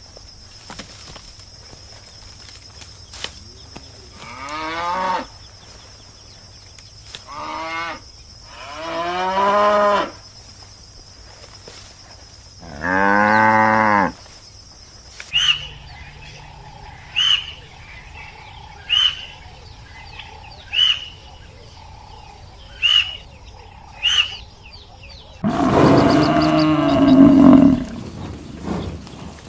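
Cows mooing: four long, pitched moos in the first half. Then short high calls repeat about every second and a half, and near the end a loud, long animal call sets in.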